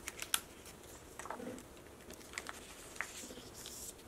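Photocards being slid into plastic binder pocket pages: scattered light clicks and crinkles of the plastic sleeves, the sharpest in the first half-second, with a short rustle of plastic near the end.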